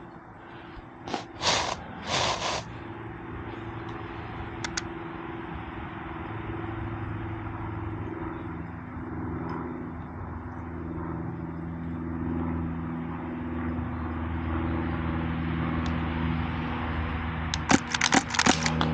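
A quick string of sharp airsoft shots near the end, over a steady low mechanical hum that slowly rises in pitch. There are also two short noisy bursts about a second and a half and two seconds in.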